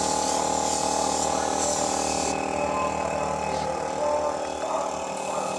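Gravity-feed air spray gun hissing as it sprays paint, stopping sharply about two seconds in, over a steady motor hum that runs throughout.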